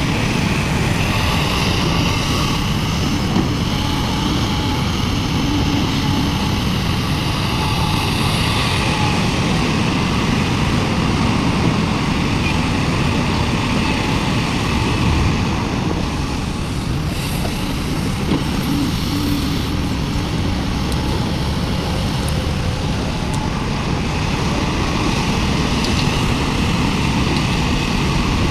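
Large hydraulic excavator's diesel engine running steadily under load, with a whine that rises and falls in the first few seconds as the hydraulics work.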